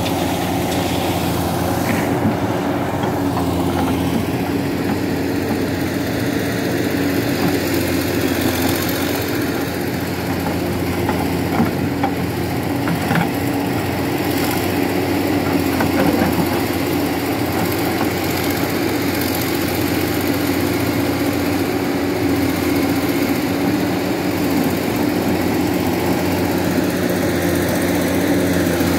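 Heavy diesel engines running steadily, a hydraulic excavator working as it loads iron ore and the truck idling, with an even engine drone and a few faint knocks near the middle.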